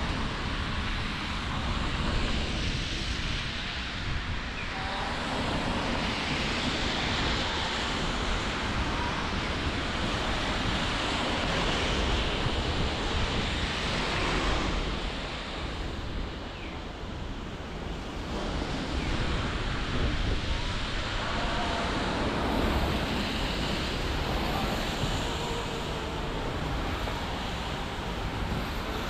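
Street ambience of passing traffic: a steady rushing hiss that swells and fades several times as vehicles go by on a wet, slushy road.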